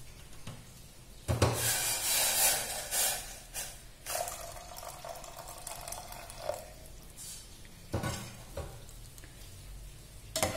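Boiling water poured from a vessel into a stainless steel pot of blended tomato soup: a splashing pour starts abruptly about a second in and runs for several seconds. Near the end a spoon starts stirring against the pot.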